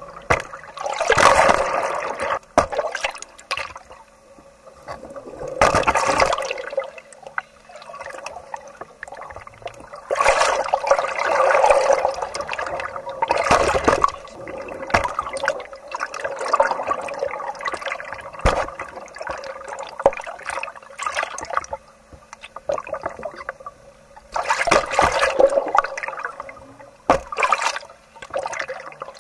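Water sloshing and splashing around the camera in repeated surges a few seconds apart, with a few sharp clicks in between.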